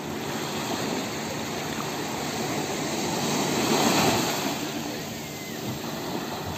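Small sea waves breaking and washing up the sand at the shoreline, swelling to a peak about four seconds in and then drawing back.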